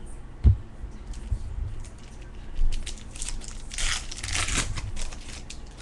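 Baseball card pack wrapper crinkling and being torn open, with one dull knock on the table about half a second in.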